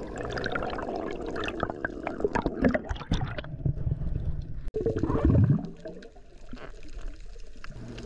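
Underwater sound picked up by a diver's camera: gurgling, bubbling water with a dense run of sharp crackling clicks for the first few seconds, and a loud low gurgling surge about five seconds in.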